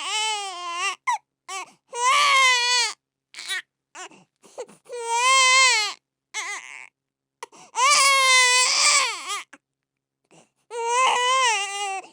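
Baby crying hard: a run of long wailing cries, each about a second long, rising then falling in pitch. Short sobs and gasps for breath come between them.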